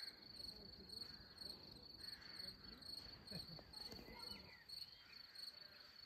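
Crickets chirping faintly in a steady, evenly pulsed high trill.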